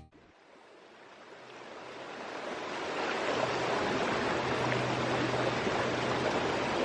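A steady rushing noise that fades in over the first three seconds and then holds, with a faint low hum underneath.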